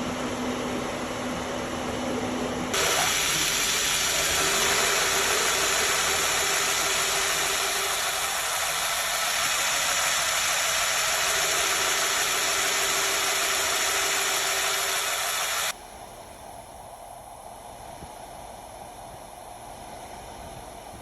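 Steady hiss from a 2014 Jeep Grand Cherokee's air-conditioning system, which is leaking refrigerant at its A/C discharge line and blowing hot air. A much louder, brighter hiss starts about three seconds in and cuts off suddenly about sixteen seconds in, leaving a quieter hiss.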